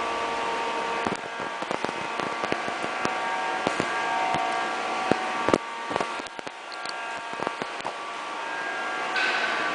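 Suzuki Burgman 125 scooter's single-cylinder engine with an aftermarket stainless-steel exhaust, running steadily, with a scatter of clicks and knocks from about a second in until near the end.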